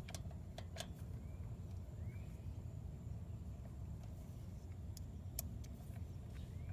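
A few sharp, faint clicks and taps of small metal parts and hand tools, as an ignition coil is positioned and its mounting screws are worked on a small engine. They come in a cluster in the first second and again around five seconds in, over a low steady background rumble, with a few faint short rising chirps.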